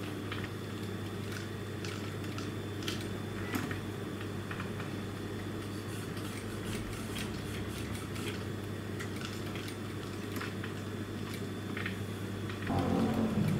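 Industrial sewing machine's motor humming steadily, with small clicks and rustles of fabric being handled at the machine bed. Near the end the machine starts stitching and the sound gets louder.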